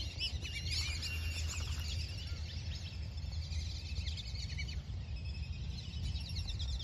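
Birds chirping and whistling: many short, high, wavering calls overlapping throughout, over a steady low rumble.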